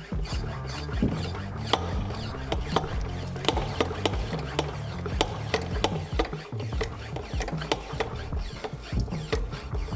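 A Power Bleeder brake pressure bleeder being pumped up on the master cylinder reservoir: a run of sharp mechanical clicks and clacks, several a second at uneven spacing.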